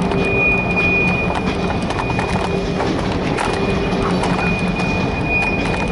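Freight train cars rolling past on jointed track, the wheels clicking irregularly over a steady low diesel locomotive drone. A thin, high steel-on-steel squeal sounds briefly near the start and again near the end.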